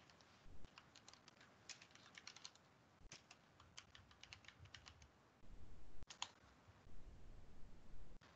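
Faint computer-keyboard typing: a run of quick, light keystroke clicks, thinning out after about five seconds. A low rumble comes in over the last three seconds.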